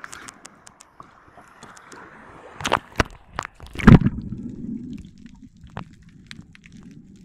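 Seawater lapping and splashing around a camera held at the surface. A few sharp splashes come as it goes under, about four seconds in, and then the dull, muffled rumble of being underwater follows, with faint scattered clicks.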